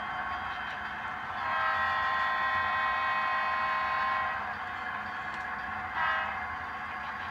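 HO-scale diesel locomotive's Tsunami2 sound decoder sounding its air horn through the model's small speaker: one long blast, then a short toot about six seconds in, part of the long-long-short-long grade-crossing signal. A steady low rumble runs underneath.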